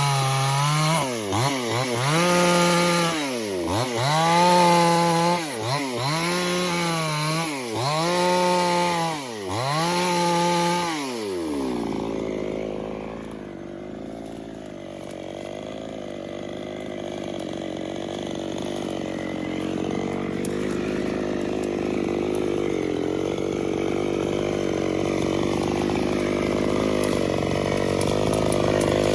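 Two-stroke chainsaw running at high revs while cutting wood, its pitch dipping and recovering about every two seconds. About twelve seconds in, the pitch falls and the saw goes on at a lower, rougher sound that grows a little louder toward the end.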